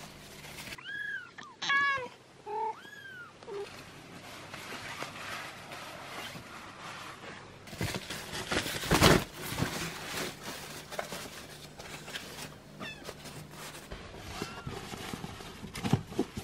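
Newborn kittens mewing in short, high, arching cries, several in the first three seconds and again near the end. Throughout, a disposable absorbent pad rustles as it is handled, with a loud swish about nine seconds in as it is swung.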